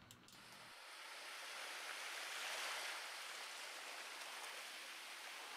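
Harsh noise music: a dense, even wash of hiss and static with no low end, swelling up over the first two seconds and then holding steady.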